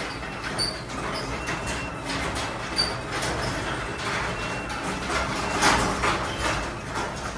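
Chamberlain belt-drive garage door opener running a sectional door: a steady motor drone under the rattle of the moving door, with short high squeaks from its rollers and hinges.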